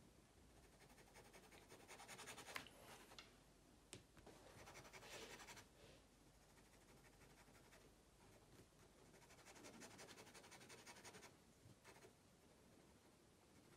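Fine-liner pen hatching on sketchbook paper: faint, quick scratchy strokes in three runs of a second or two each, with a sharp tick about four seconds in.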